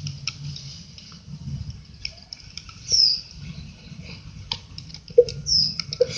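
Glue-and-detergent slime being stirred in a bowl: scattered sticky, wet clicks and squelches, with a few short, high falling squeaks.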